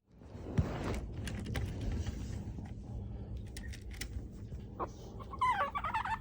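Chihuahua puppy whimpering in high, wavering, bird-like chirps near the end: an attention-seeking whine. Before that there are a few soft clicks and taps.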